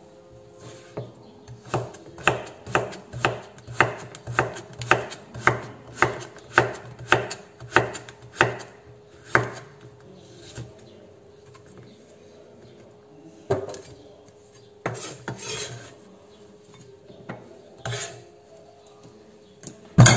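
Knife slicing a young Chinese squash thinly on a wooden cutting board, the blade knocking the board in a steady run of about two strokes a second, then stopping to a few scattered knocks as the cut pieces are moved and the next piece is set down.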